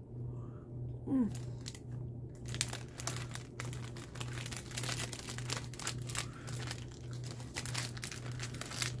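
Plastic snack wrapper crinkling as it is handled, a dense run of crackles from about two and a half seconds in until near the end. A low steady hum runs underneath.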